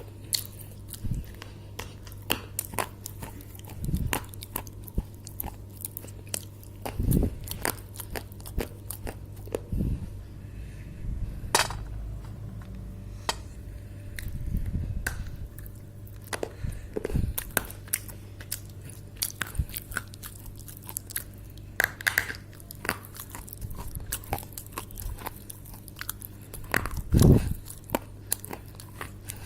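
Dry clay being bitten and chewed close to the microphone: irregular sharp crunches and crackles, with a few heavier bites, over a steady low hum.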